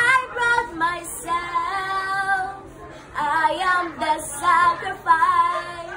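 A young girl singing solo, with some long held notes and a short pause about halfway through.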